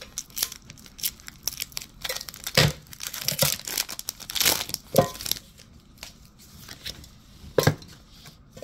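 Foil Pokémon booster pack wrapper being torn open and crinkled by hand, a run of crackly rips and rustles with a few louder tears.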